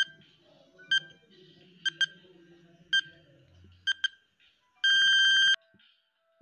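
Countdown timer sound effect: short high electronic beeps about once a second, some doubled, then one longer beep about five seconds in as the count reaches zero.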